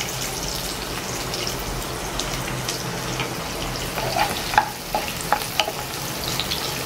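Chopped onion sizzling in hot oil in a nonstick kadai. From about four seconds in, a wooden spatula stirs it, with short knocks and scrapes against the pan.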